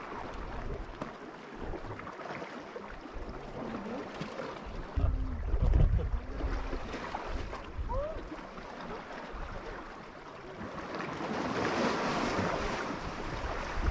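Sea water lapping against a concrete platform and rocks, with wind buffeting the microphone in low gusts. Splashing rises near the end as a swimmer enters the water.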